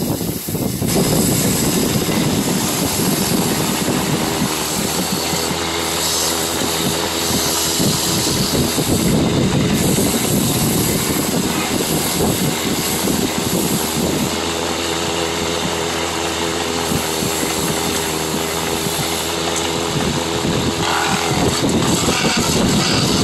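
Motor-driven wood lathe running steadily, a continuous hum, as a hand-held tool scrapes and smooths the wooden vessel spinning on its spindle.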